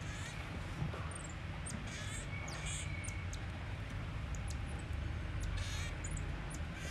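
Pygmy marmoset giving a scattered series of short, very high-pitched chirps and squeaks, with a few brief rustles of its bedding, over a steady low hum.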